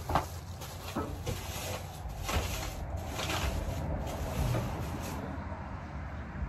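Scattered light knocks, clicks and rustling of household items being handled and shifted about while tidying a room.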